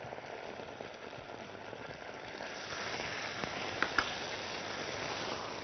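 Onions and garlic frying in oil in a stainless-steel pan, sizzling steadily as tomato paste is stirred into them. The spatula clicks lightly against the pan a couple of times about four seconds in.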